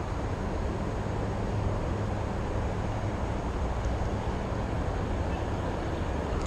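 Steady low rumble of outdoor background noise with no distinct event in it.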